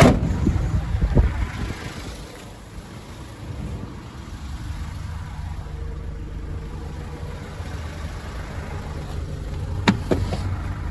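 Nissan NV400 van's diesel engine idling steadily, with a couple of knocks at the start and a sharp knock near the end.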